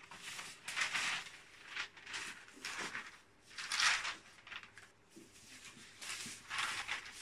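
Stiff brown paper pattern rustling as it is picked up and handled over the fabric, in a series of short rustles, the loudest about four seconds in.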